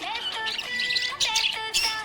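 Budgerigars chirping and warbling in quick bursts over a song with a melody of held notes.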